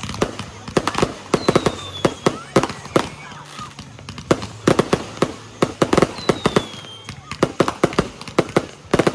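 Fireworks and firecrackers going off in rapid, irregular succession, many sharp bangs a second, with two short whistles falling slightly in pitch.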